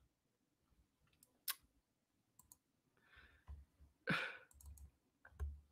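Quiet breaths close to a microphone, with faint clicks: one sharp click about one and a half seconds in, a few smaller ones after it, then a soft breath and a louder breath about four seconds in.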